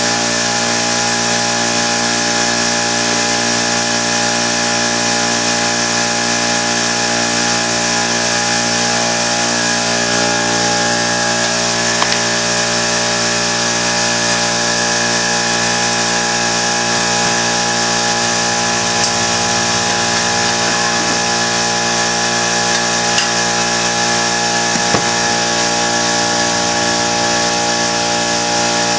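A steady drone of a running motor with many fixed tones, unchanging throughout, and a few faint clicks and taps.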